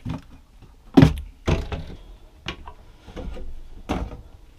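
Wooden cabinet doors in a boat's galley being opened and shut: a series of about four knocks and clunks, the loudest about a second in.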